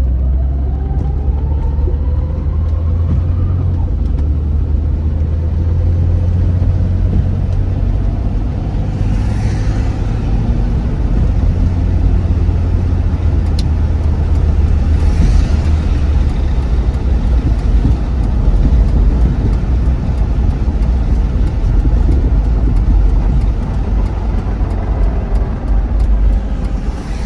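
Cabin noise inside a moving 2002 Jeep Grand Cherokee on a wet road: a steady deep engine and tyre rumble. A faint rising whine over the first few seconds as it speeds up, and a falling one near the end as it slows. Two brief swishes about six seconds apart.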